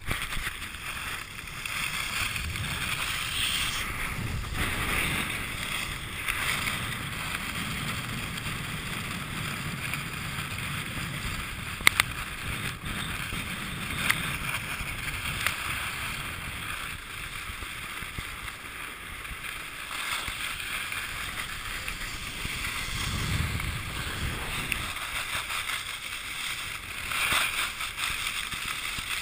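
Skis sliding and carving on packed snow: a steady scraping hiss that swells and fades with each turn, with a low rumble under some of the swells. Two sharp clicks stand out about twelve and fourteen seconds in.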